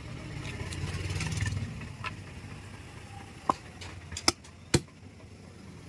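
A low engine-like rumble that fades after about two seconds, then three sharp knocks of a butcher's knife striking the wooden chopping block.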